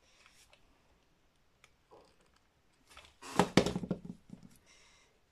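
Quiet handling on a craft table, with a brief rattling clatter of small tools and objects being knocked and moved about three seconds in, then a short soft rustle.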